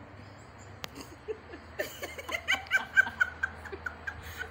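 A woman giggling: a run of short laughs starting about a second in and getting louder, with a single sharp click just before.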